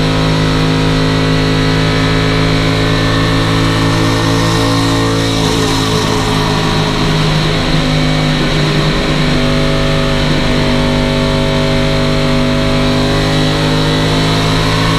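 Chevrolet stock car's V8 engine running at steady high revs under load, heard from inside the cockpit. Its note wavers and blurs for a few seconds around the middle, then steadies again.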